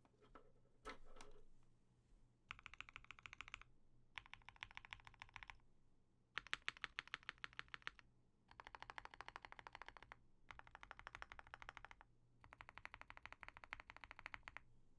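Typing on an OwLab Mr. Suit custom mechanical keyboard with lubed Banana Split linear switches, a POM plate and GMK keycaps: fast runs of keystrokes in about six bursts, with short pauses between them. A brief duller sound comes about a second in.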